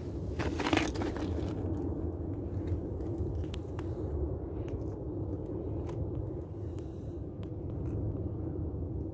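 Footsteps crunching and scraping on loose lava rubble and ash, with a louder crunch about a second in and light clicks of grit after it, over a steady low rumble.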